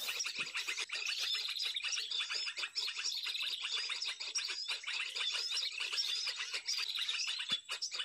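Bird-lure call recording playing: dense high chirping, with a short trill repeating about every second and a half, used to draw small birds to glue sticks.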